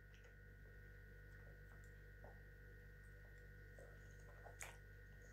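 Near silence: a faint steady high whine and low hum, with a few faint ticks.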